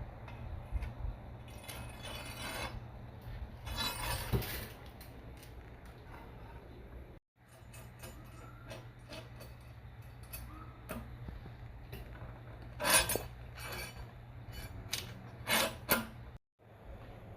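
Metal transmission parts of a Tremec T56 gearbox clinking, scraping and knocking together as they are handled and fitted by hand, over a steady low hum. A few louder, ringing clinks stand out, and the sound drops out suddenly twice.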